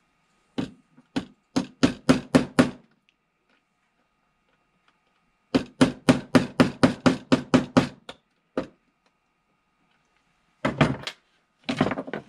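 Pliers tapping and knocking on a small metal connector pin against a wooden workbench. The knocks come in quick runs of about five a second, one run early and a longer one in the middle, with a few more near the end.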